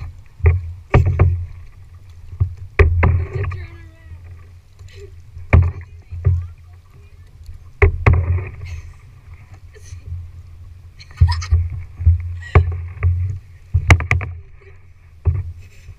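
Paddling a plastic tandem kayak: water splashing from the paddle strokes, with irregular sharp knocks, several close together near the end.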